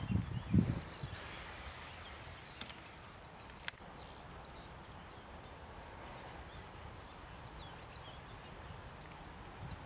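Open-country background: small birds chirping over a faint steady rush of wind, with wind buffeting the microphone in the first second.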